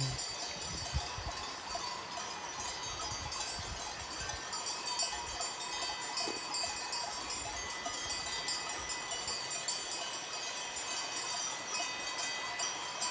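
Many cowbells on a herd of grazing cattle ringing irregularly and overlapping in a steady jangle.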